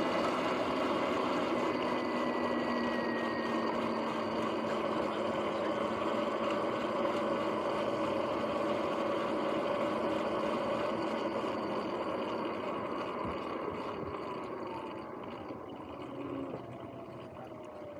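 Sur-Ron X electric dirt bike under way: a steady whine from its motor and drivetrain over tyre and wind noise, its bearings running noisy. Over the last few seconds the whine falls in pitch and the sound gets quieter as the bike slows.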